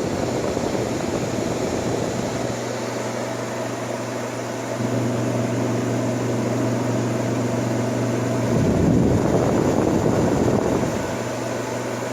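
1958 Carrier 4,500 BTU window air conditioner running in cooling mode: the blower rushes air over a steady electrical hum from the running compressor. About two-thirds of the way in, a louder low rumbling rush swells for a couple of seconds, then settles.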